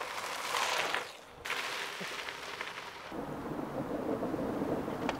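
Gravel-bike tyres crunching on a dirt and gravel path as the rider passes close by, loudest about a second in. After about three seconds this gives way to a lower, steady noise.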